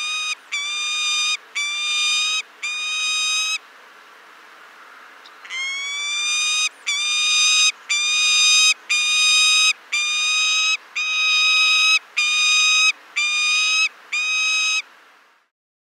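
Peregrine falcon wailing: a series of drawn-out calls about a second each, every one rising slightly and then holding its pitch. Four come in quick succession, then after a pause of about two seconds a run of about ten more.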